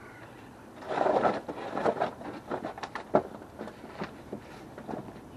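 Hand work on a car during an oil change: a scraping rustle about a second in, then a run of light knocks and clicks, the sharpest near the middle.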